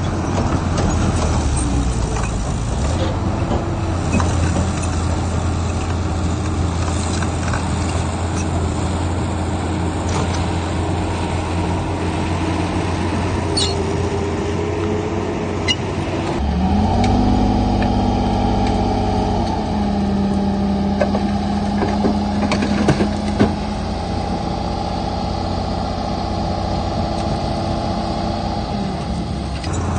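Diesel engines of earthmoving machinery, a bulldozer and dump trucks, running under load. The engine note shifts suddenly about halfway through, and a few short metallic knocks follow.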